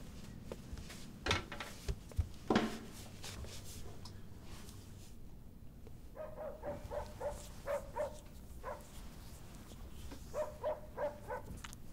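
A dog barking in quick runs of short barks, about three a second, once around the middle and again near the end. Two sharp knocks come about a second and two and a half seconds in.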